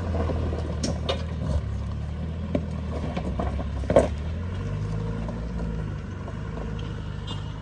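Land Rover Discovery Tdi turbodiesel engine pulling at low speed up a rocky track, with stones cracking and knocking under the tyres; the loudest knock comes about four seconds in. The engine fades a little near the end as the vehicle moves off.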